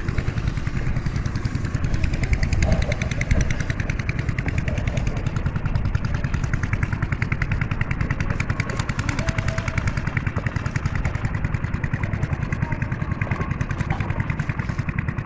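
Small engine running steadily at an even speed, with a fast, regular chugging beat.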